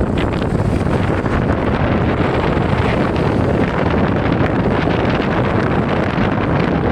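Steady wind noise buffeting the microphone over the road noise of a moving vehicle. No distinct brake squeal stands out.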